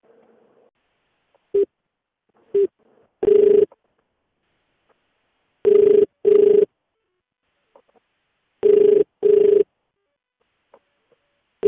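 Ringback tone of an outgoing phone call on an Indian network: pairs of short rings, one pair about every three seconds, after a few short beeps as the call connects. The call is ringing and not yet answered.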